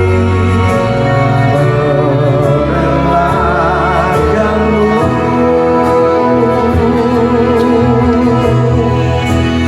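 Music from a pop ballad between sung lines: full accompaniment with a melody of held, wavering notes.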